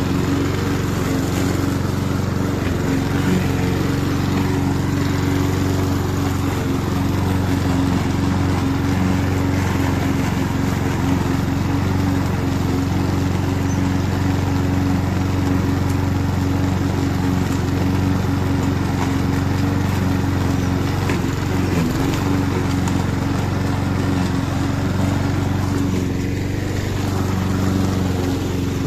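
Roller lawn mower's engine running steadily while mowing, holding an even speed throughout.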